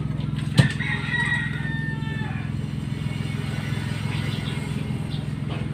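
A rooster crowing once, one long call about a second in, over a steady low hum; a sharp knock comes just before the crow.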